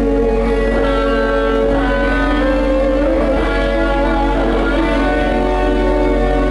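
Loud live amplified band music with electric guitar, made of long held notes that shift every second or so.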